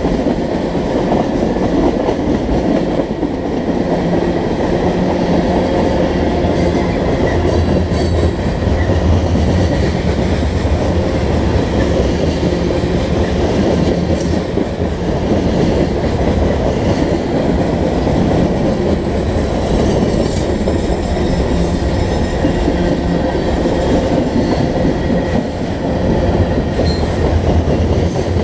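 Freight train cars, tank cars and then covered hoppers, rolling steadily past close by: the loud, continuous running noise of steel wheels on the rails with scattered clicks.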